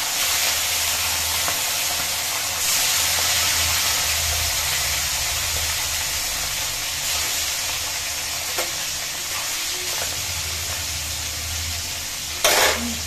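Fish pieces frying in hot oil in a black kadhai, a steady sizzling hiss. Near the end a brief loud clatter as a metal spatula goes into the pan.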